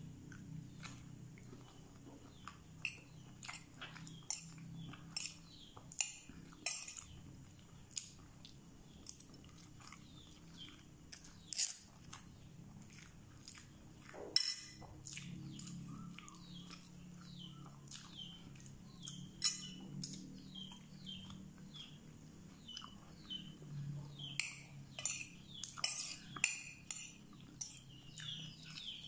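A person eating from a plate: scattered sharp clinks of a metal spoon against the plate, with soft chewing. Small birds chirp in the background, more often near the end.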